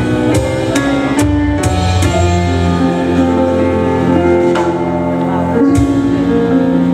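Live instrumental song intro on stage piano with upright bass: a quick series of struck piano notes in the first two seconds, then held chords over a steady low bass line.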